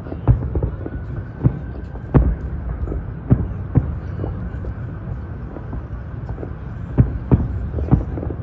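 Aerial fireworks shells bursting, a dozen or so irregular booms and bangs over a steady low rumble. There is a lull in the middle, then a quick cluster of loud bangs near the end.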